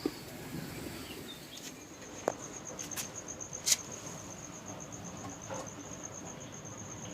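A cricket trilling steadily at a high pitch, starting about two seconds in, with a few sharp clicks or knocks.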